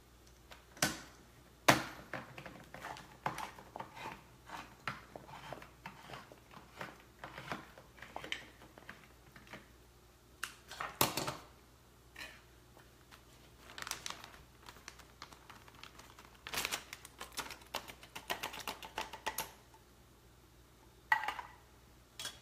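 Hand-held can opener cranking around the rim of a can in a quick run of small clicks, followed by clatter and the crinkling of a plastic zip-top bag as canned green chilies are emptied into it.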